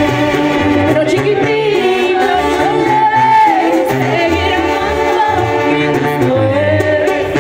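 Live Mexican banda music played loud through a PA: a woman singing over clarinets and brass, with drums and a pulsing bass line.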